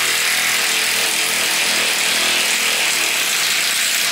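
Handheld power tool running flat out and steadily, working a stuck, over-tightened bolt loose; it stops right at the end.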